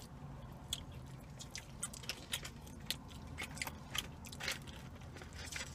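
Close-up chewing and lip-smacking as rib meat is eaten, a scatter of irregular short wet clicks over a low steady hum.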